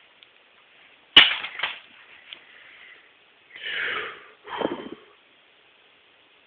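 Objects falling: a sharp crash about a second in with a short clatter after it, then two more clattering noises around four and five seconds in.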